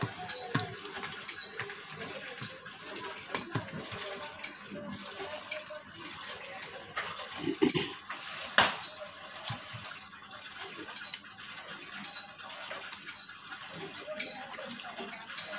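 Eating rice and fish by hand from a stainless steel plate: fingers mixing and scooping rice against the metal, with wet chewing and mouth sounds. Two sharper clicks on the plate stand out, one just past the middle and one near the end.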